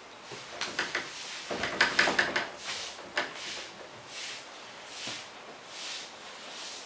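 Duster and chalk working on a blackboard: a quick cluster of sharp taps and scrapes in the first three seconds, then a few softer swishing strokes about a second apart.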